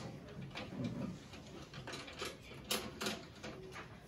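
Scattered light taps and scratches of pencils writing on paper, with worksheets being handled, at uneven intervals.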